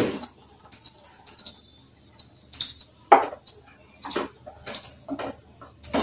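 Wooden spoon stirring thick curd through a pan of curry, making short, irregular scrapes and squelches against the pan.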